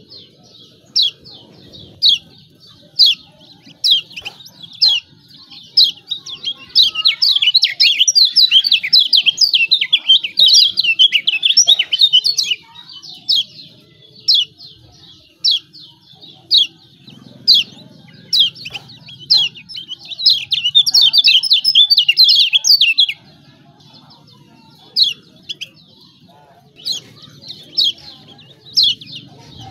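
Kecial kuning (Lombok white-eye) giving its rapid, high-pitched 'ciak ciak' chirping call, the excited call used to provoke other birds into singing. It comes in dense runs of quick chirps, thinning to scattered single chirps after a brief lull about two thirds of the way through.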